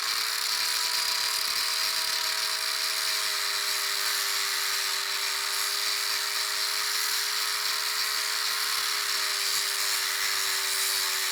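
Angle grinder with a slotted see-through abrasive disc running steadily and grinding, a high motor whine over a hissing grind; the pitch sags slightly near the end.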